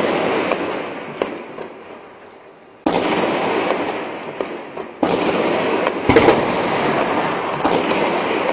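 Heavy gunfire in repeated bursts, each sharp onset followed by a long echoing tail that fades slowly: a new burst about three seconds in, another about five seconds in, a loud crack about six seconds in, and another near the end.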